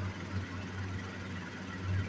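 Steady low hum with an even hiss behind it, the hum swelling and fading slightly every fraction of a second.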